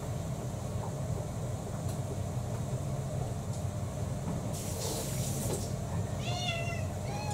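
A domestic cat meows once near the end, a falling call, while waiting to be fed. A brief hiss-like rustle comes a little past the middle, and a steady low hum runs underneath.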